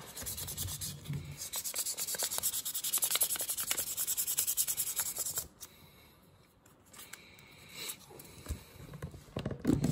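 800-grit sandpaper rubbed by hand in quick back-and-forth strokes along a steel knife spine and tang, evening out the scratch lines left by coarser sanding. The strokes are strongest in the first half, pause about five and a half seconds in, and pick up again briefly near the end.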